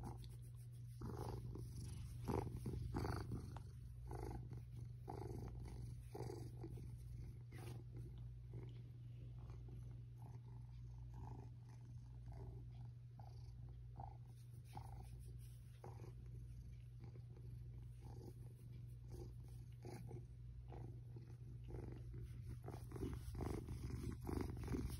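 Domestic cat purring steadily and contentedly as it is stroked: a low continuous rumble that swells about once a second with its breathing.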